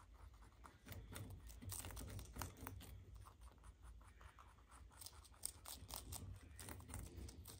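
Two baby rabbits nibbling cabbage leaves: faint, quick crunching and tearing clicks of small bites.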